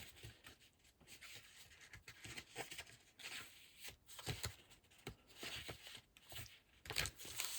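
Sheets of patterned craft paper being handled and sorted, with faint irregular rustles and light taps, a little louder near the end.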